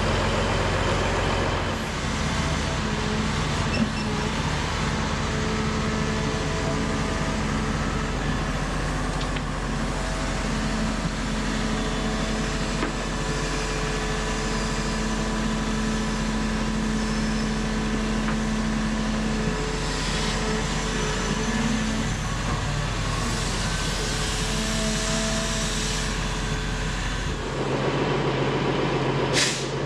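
Diesel engine of heavy earthmoving equipment running steadily as it works. Its note changes about two seconds in and again near the end.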